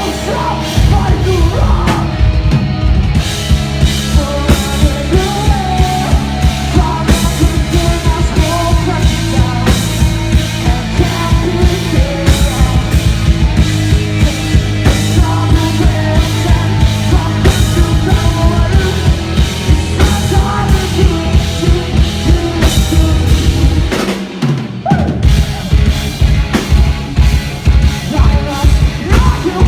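Rock band playing live and loud, with a steady driving drum-kit beat under bass and other instruments. About four-fifths of the way through, the drums and bass drop out briefly, then the full band comes back in.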